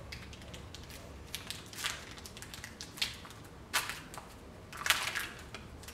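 A crinkly candy bar wrapper being handled and torn open, giving irregular sharp crackles, the loudest about four and five seconds in.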